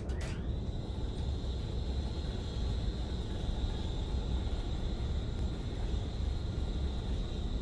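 A steady low rumble with a constant high-pitched whine above it, an engine-like drone, with a brief rush of noise right at the start.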